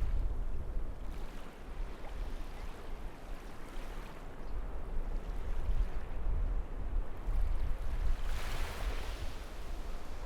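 Strong wind gusting on the microphone with a heavy low rumble, over waves breaking and washing up a beach. One louder surf wash comes about eight seconds in.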